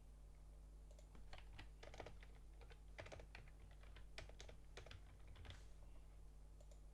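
Faint, irregular keystrokes on a computer keyboard: someone typing code.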